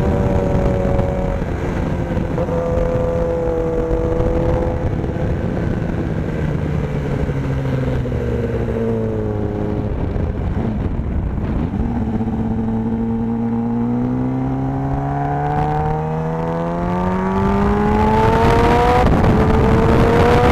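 Sport motorcycle engine heard from the bike itself on a race track: the engine note falls as the bike slows through a long corner, then climbs steadily as it accelerates out, with an upshift near the end and the pitch climbing again after it. Wind rush over the bike runs underneath.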